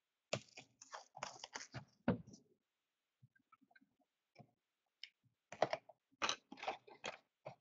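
A cardboard trading-card hobby box being handled and unwrapped by hand: crackling and clicking of its plastic wrap and cardboard in two bursts, one at the start and another from about two thirds of the way through, with a quieter gap of faint ticks between.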